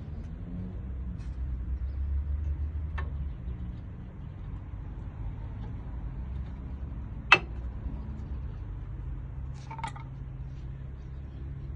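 Brake parts and tools being handled during a brake pad change: a few sharp clicks, the loudest about seven seconds in, over a low steady rumble.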